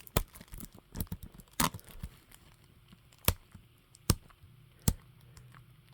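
Scattered sharp clicks and taps from a plastic CD case being handled: a quick cluster at first, then three single louder clicks spaced under a second apart.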